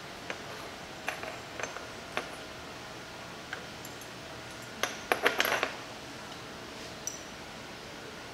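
Light glass clinks and taps as a glass dropper and stopper are handled at an amber glass reagent bottle. Single clinks come every second or so, with a quick cluster of clinks about five seconds in.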